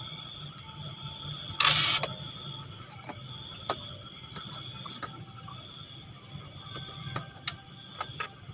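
Crickets chirping steadily in a high, thin trill at night, broken by a short loud rushing noise about two seconds in and a few sharp clicks in the second half.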